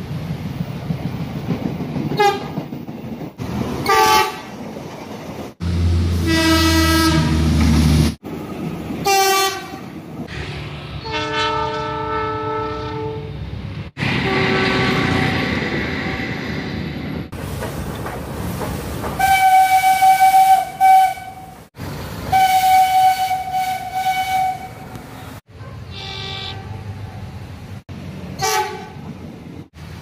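Indonesian train horns sounding one after another from different trains, cut together: short toots and several longer held blasts, some of them chords of several notes. Between the blasts there is the noise of trains running on the rails.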